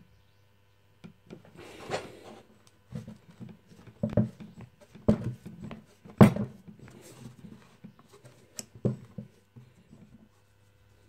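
Rusty metal parts of an Ingersoll Rand air impact wrench knocking, clicking and scraping as it is handled and pried apart with a metal tool, an uneven series of knocks with the sharpest clank about six seconds in.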